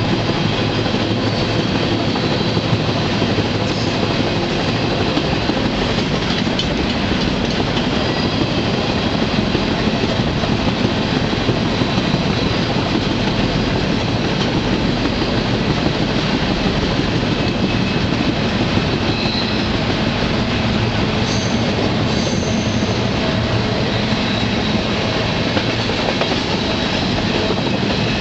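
Freight train rolling along, heard from aboard an open railcar: a steady rumble and rattle of steel wheels on rail. A few brief high-pitched wheel squeals come about two-thirds of the way in.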